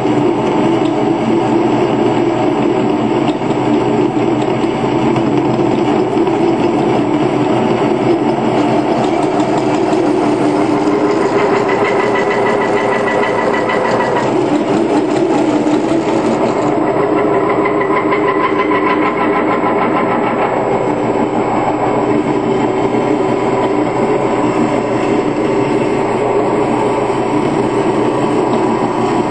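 A 10x18 wood lathe converted to cut metal, running steadily under power with a dense, fine rattle, its tone shifting a few times.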